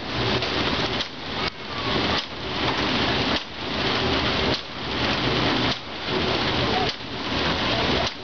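Water wheel turning under load, water pouring and splashing through it in a loud steady rush that dips in a regular pulse a little over once a second.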